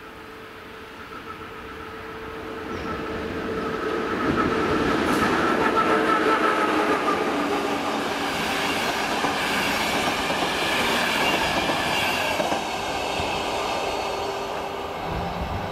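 Passenger train approaching and running past a level crossing, its wheels clattering over the rails; it grows loud about four seconds in and stays loud as the cars go by.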